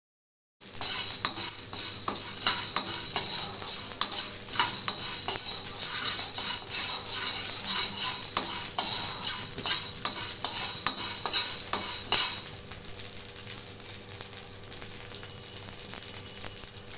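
A pan being stirred over heat: a steady sizzling hiss with frequent small clicks and scrapes of the spoon against the pan. The sizzle is louder for the first two-thirds and then settles to a softer hiss.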